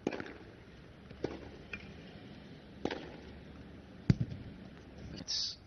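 Tennis ball bounced on a hard court before a serve: four sharp knocks about a second and a half apart, the loudest near four seconds in, then a brief hiss near the end.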